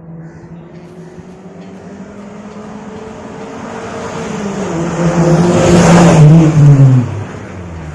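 Maruti Gypsy King's 1.3-litre four-cylinder petrol engine, fitted with a performance exhaust, driving past. The engine note grows steadily louder, peaks about six seconds in, then drops in pitch and fades as the vehicle goes by.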